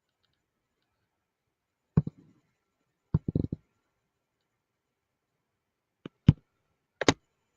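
A few short, sharp clicks and knocks in small groups: one about two seconds in, a quick cluster just after three seconds, and two more pairs near the end, with dead silence between them.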